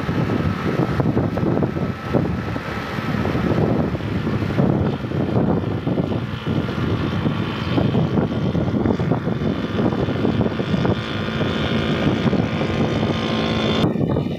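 Wind buffeting the microphone of a moving motorcycle, over the steady drone of its engine running at cruising speed. The sound changes abruptly near the end.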